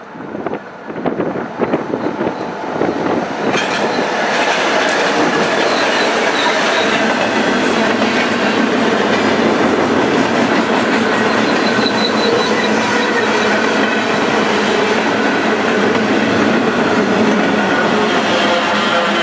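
A train passing close by: a run of sharp clacks, then loud steady noise from about three seconds in.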